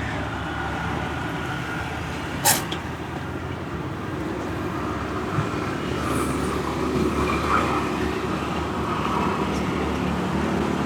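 Steady street traffic noise, with one sharp click about two and a half seconds in.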